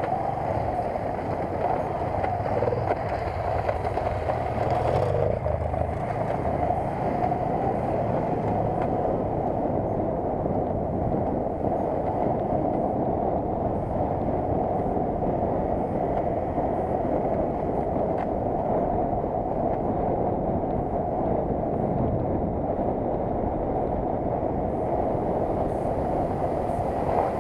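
Motorcycle engine running steadily while riding along a rough dirt track, heard from a camera on the bike, with wind on the microphone.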